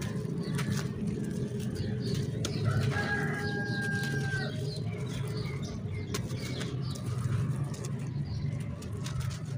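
Dry clay chunks being crushed and crumbled by hand into gritty powder, giving many small crunches and crackles. A rooster crows once in the background about three seconds in, a held call of about a second and a half.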